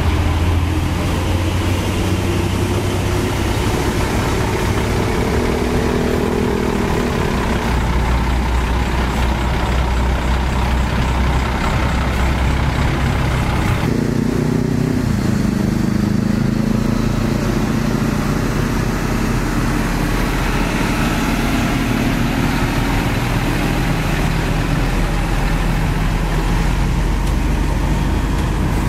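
Heavy diesel trucks of a tank-transporter convoy driving past close by, their engines running loud and steady. The engine sound changes abruptly about halfway through as another truck approaches.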